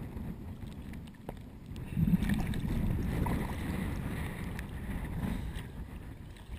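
Water sloshing and splashing against a camera as it dips in and out of the lake surface, getting louder about two seconds in.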